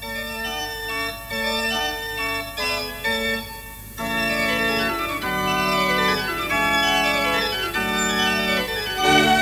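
Organ music: a few separate held notes with short breaks between them, then from about four seconds in a louder passage of fuller chords.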